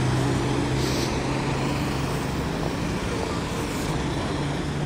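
Busy city road traffic: a steady engine hum from a nearby vehicle over the wash of passing cars and tyres, the hum easing after about two seconds.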